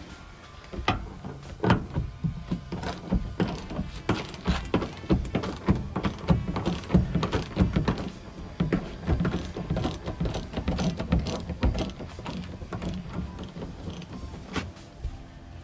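Socket ratchet clicking in quick, repeated runs as it turns a bolt on a pickup's cab floor.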